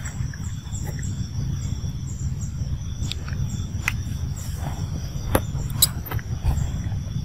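Outdoor ambience: a steady high-pitched insect drone over a low rumble, with a few brief sharp clicks and chirps in the second half.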